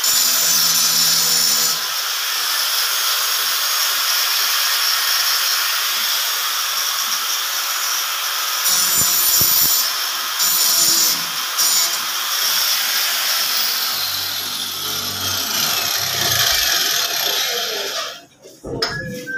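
Corded power drill with a hole saw cutting a round hole through a ceiling board, running steadily and stopping abruptly near the end once the hole is through.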